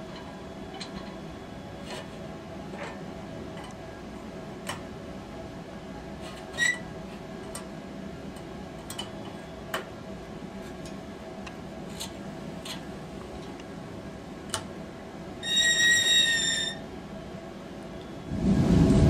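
Carbide toy cannon being readied to fire: faint, irregular clicks and handling of its metal hopper and igniter, and a short high tone lasting about a second near the end. Right at the end comes the loud bang of the acetylene charge igniting.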